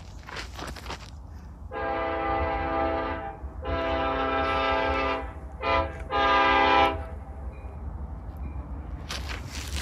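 Union Pacific diesel locomotive's multi-chime air horn sounding four blasts: two long, one short, then a slightly longer one. This is the long-long-short-long warning signal for a grade crossing.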